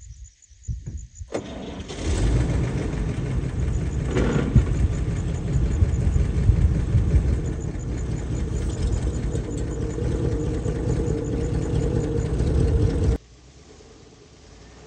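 Old truck's engine starting about a second in, then running steadily at idle. It cuts off abruptly near the end.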